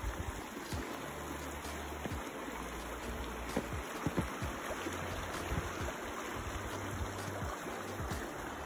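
Shallow mountain creek flowing over rocks: a steady rush of running water.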